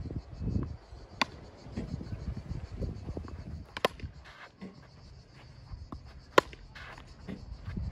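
Tennis ball struck with a racket three times, sharp cracks about two and a half seconds apart, the loudest near the end, with softer knocks of bounces and footsteps and a low rumble between them.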